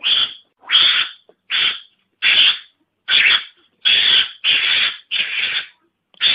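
Mongoose (garangan) calls used as a hunting lure: a run of nine short, raspy, hiss-like calls in quick succession, each under a second, with brief gaps between them.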